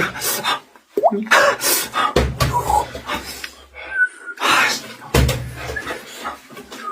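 Beatboxed sound effects: a string of sharp mouth clicks and knocks with a couple of deep kick-like thumps, a brief rising squeak about a second in and a short high whistle near the middle.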